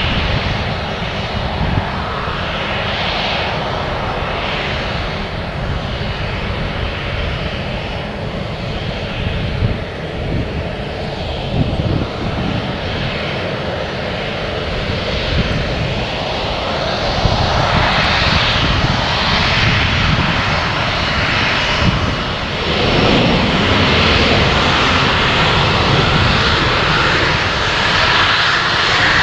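Jet engines of a Singapore Airlines Airbus A350-900, Rolls-Royce Trent XWBs, running at taxi power as the airliner rolls past: a steady rumble and whine that grows louder a little past halfway, with the whine strongest near the end.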